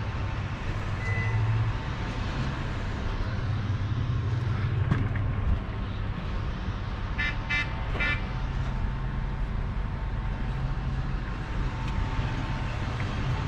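Large mining hydraulic excavator's diesel engine running steadily, heard from on the machine itself. About seven seconds in, a quick run of four or five short high beeps.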